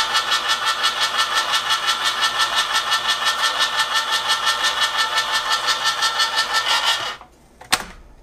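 Hamilton Beach Smooth Touch electric can opener running as it cuts around the side seam of a 15-ounce can, a steady motor sound with a fast even pulsing. It stops about seven seconds in, and a single sharp click follows a moment later.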